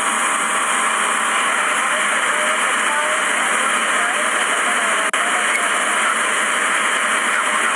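Steady rushing air noise in a parked airliner's cockpit, the ventilation running, with faint voices in the background.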